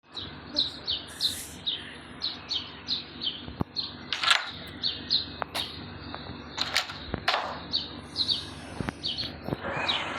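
A small bird chirping over and over, two or three short high chirps a second, with a few sharp clicks in between.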